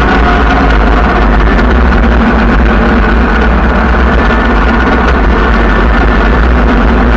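A vehicle driving slowly along a road, with a steady engine drone over a heavy, even low rumble.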